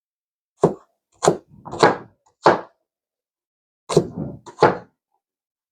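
Kitchen knife chopping an onion on a cutting board: six separate, unevenly spaced thunks of the blade hitting the board.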